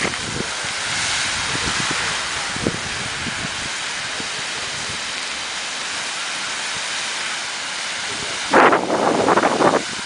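Geyser erupting: a steady rushing hiss of water and steam. A louder, uneven burst of noise comes about nine seconds in.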